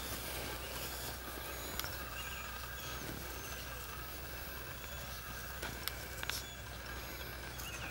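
Faint outdoor background of Newfoundland puppies scampering over grass, with a few soft clicks and scattered short, faint high chirps over a steady low hum.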